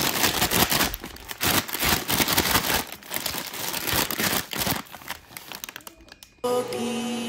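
Paper cooking bag crinkling and rustling in irregular bursts as it is handled. Music starts near the end.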